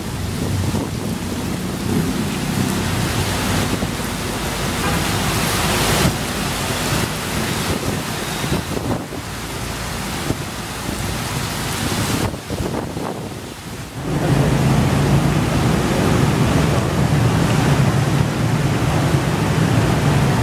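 Steady rain and wind noise of a thunderstorm; after a brief lull about two-thirds of the way in, a louder low rumble sets in and continues.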